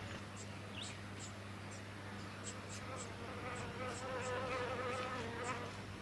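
A flying insect buzzing close by, starting about halfway through and fading near the end. Thin, short, high chips run throughout, from brown-headed honeyeater nestlings begging with their gapes open.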